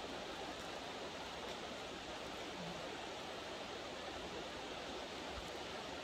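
Steady rush of a mountain stream, an even wash of flowing water.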